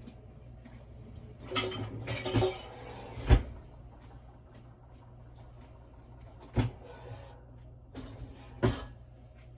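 Kitchen things being handled and set down: a short clatter about two seconds in, a sharp knock just after three seconds, and two more single knocks near seven and nine seconds.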